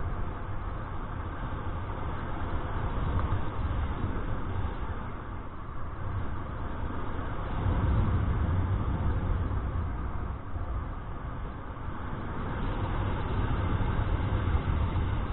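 Wind rushing over the microphone of a paraglider pilot's camera in flight: a low, steady buffeting rumble that swells and eases every few seconds.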